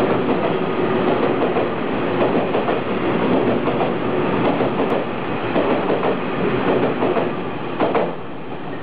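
An EMU300 Tze-Chiang express train running through a station at speed: a steady rumble of wheels on rail with repeated clacks over the rail joints. It eases off near the end as the last car goes by.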